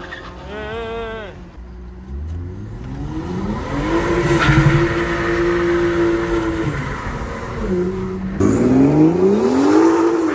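A car engine accelerating hard: its pitch climbs for about two seconds, holds and then falls away. After a sudden cut, a second run climbs again near the end.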